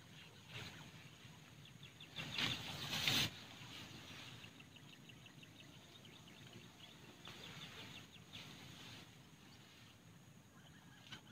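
Rustling of dry coconut-palm leaves in a hunting blind for about a second, a couple of seconds in. Faint rapid ticking animal calls run underneath.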